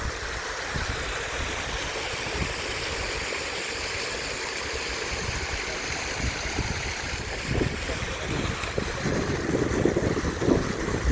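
Wind buffeting the microphone outdoors: irregular low rumbling gusts, stronger near the end, over a steady rushing hiss.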